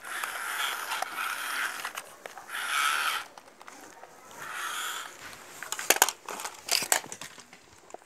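Small electric motors and plastic gears of a wired-remote toy excavator grinding in three short bursts as its arm is worked from the controller. Several sharp plastic knocks and clatters follow near the end.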